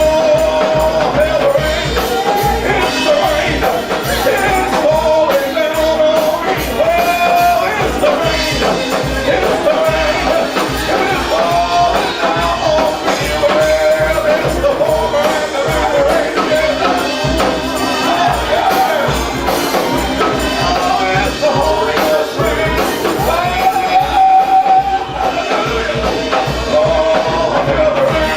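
Live gospel praise music: a church band playing a steady beat with tambourine, and voices singing a wavering melody over it.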